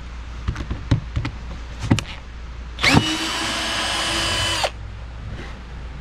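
Power drill backing out a screw hidden in a sawdust-covered board: a few light clicks and knocks, then the drill spins up about three seconds in, runs with a steady whine for about two seconds and stops abruptly.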